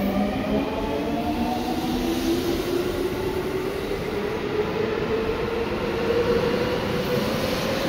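Seibu 6000 series electric train's Hitachi GTO-thyristor VVVF inverter and traction motors whining under running noise, with several tones climbing slowly in pitch.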